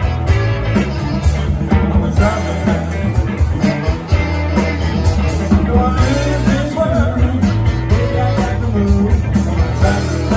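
A rock band playing live: electric guitar, electric bass and drums, with a man singing lead vocals.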